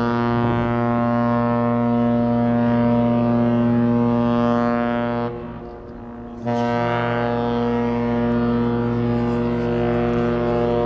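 Queen Mary 2's deep ship's whistle sounding long blasts. One blast cuts off about five seconds in, and a second long blast begins about a second later.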